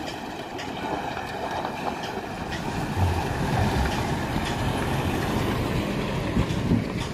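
Toyota Hilux pickup driving slowly through deep mud ruts, its engine running under load as it passes close by, loudest about three to four seconds in.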